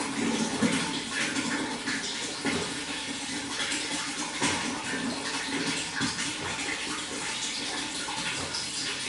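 Running water flowing steadily, with many small irregular splashes and gurgles.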